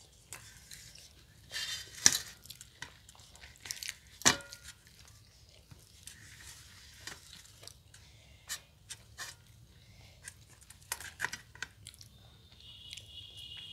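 Close-miked eating with the hands from steel plates: puris being torn, fingers and food clicking on the metal, and chewing. Two louder clinks against a steel plate come about two and four seconds in, the second one ringing briefly.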